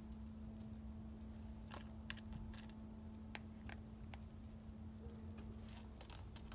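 A cat crunching dry kibble, with irregular sharp crunches starting about two seconds in, over a steady low hum.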